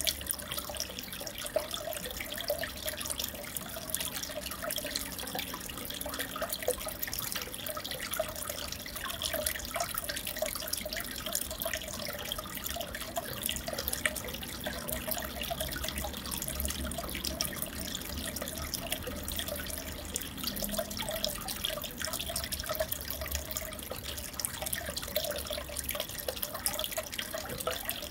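Aquarium water bubbling and trickling steadily, a dense crackle of small bubbles and drips without pause.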